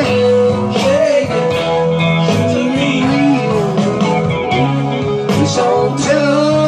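Strat-style electric guitar playing a lead line with bent, sliding notes over a full band backing with steady bass and chords.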